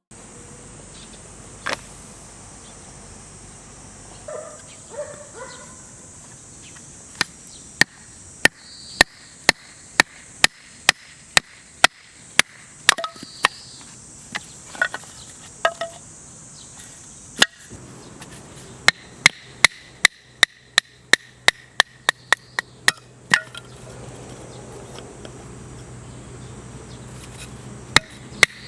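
Firewood being split for a campfire: sharp wooden knocks at about one to two a second, in two long runs with short pauses between.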